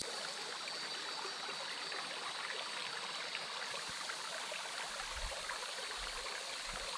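Small feeder creek flowing steadily, an even rush of running water, with a faint steady insect trill above it.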